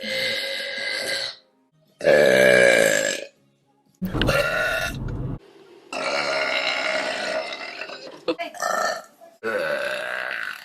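Women burping, a string of separate long, drawn-out burps one after another with short silent gaps between them; the loudest and deepest comes about two seconds in. Music plays under some of them.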